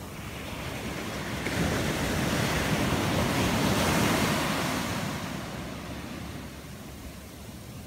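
Ocean surf: a wave breaks at the shoreline and washes up the sand. It swells about a second and a half in, is loudest in the middle, and fades out by about six seconds.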